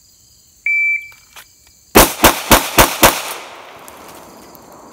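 A shot-timer start beep, then about a second later a pistol drawn from the holster and fired in one fast string of shots, about four a second: a bill drill. The shots echo and die away over the next second or so.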